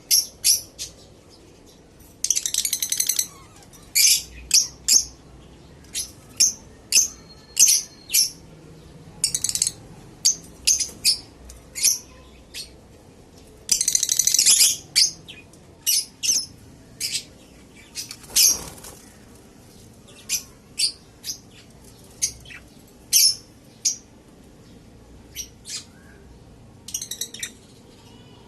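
Lovebirds chirping: many short, sharp, high-pitched chirps, with two longer bursts of rapid chattering, one about two seconds in and one near the middle.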